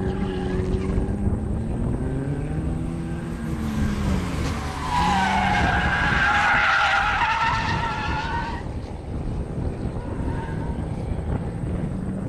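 Race car engine note rising and falling as a car brakes and accelerates into a corner, then tyres squealing loudly for about four seconds mid-way as the car slides through the bend; the engine note carries on after the squeal stops.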